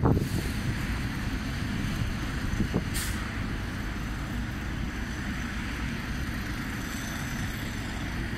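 Outdoor background of a steady low rumble from wind on the microphone and distant road traffic, with one brief hiss about three seconds in.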